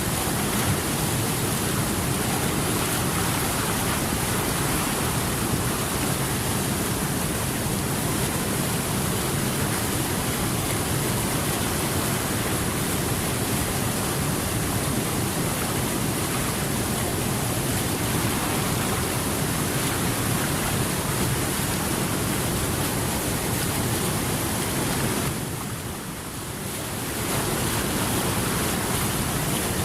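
Steady rushing water, an even continuous noise that dips briefly a few seconds before the end and then comes back.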